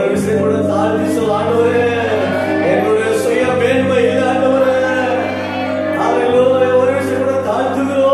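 Tamil Christian worship song sung by a group of young women and a man at microphones, over sustained keyboard chords.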